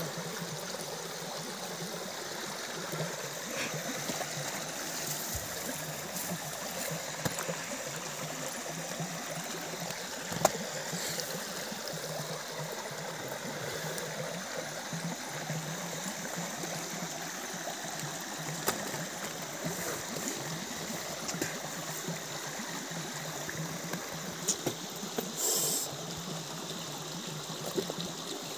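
Steady sound of running river water, with scattered small clicks and taps from hands picking fish out of a wet net. There is one sharper click about ten seconds in and a brief hiss near the end.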